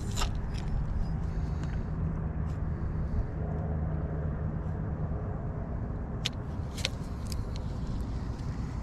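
Wind rumbling on the microphone, with a faint steady hum for a few seconds and a handful of sharp clicks from a spinning reel being handled while the lure sinks.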